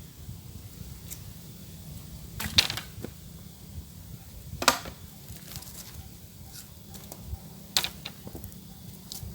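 Three sharp knocks or strikes, a couple of seconds apart, each with a brief ringing tail, over a faint steady high hiss.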